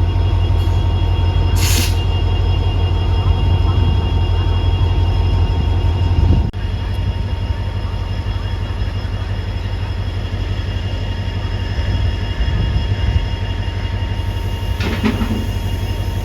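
A WDP4 diesel locomotive's EMD 16-cylinder two-stroke engine running with a loud, steady low hum and faint steady whining tones above it. A brief high hiss comes about two seconds in, and the level drops suddenly about six seconds in.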